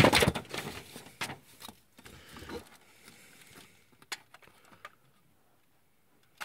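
Hard plastic toy robot being handled and tipped onto its side against a plastic ruler: a burst of plastic rubbing and clattering at the start, then a few scattered light clicks and knocks.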